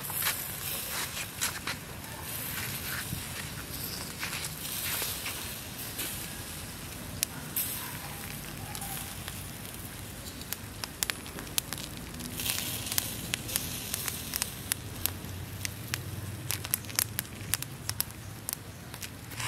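Chicken grilling on a wire rack over charcoal embers: the coals crackle with many sharp pops, as fat drips onto them. The pops come thicker in the second half.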